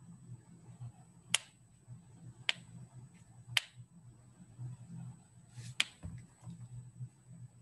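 Four sharp, short clicks at uneven intervals, about one to two seconds apart, over a low steady hum and a faint high-pitched whine.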